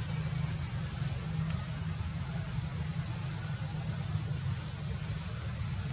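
Steady low rumble of outdoor background noise, with no distinct event.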